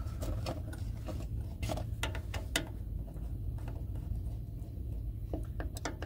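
Quarter-inch nut driver turning hex-head screws out of a fuel selector valve cap, giving a run of small, irregular metal clicks and short scrapes over a steady low hum.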